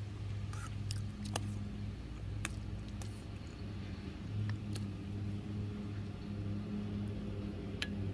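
A steady low hum from a motor running nearby, with a few light clicks and clinks of a metal spoon scraping and tapping in a stainless steel bowl.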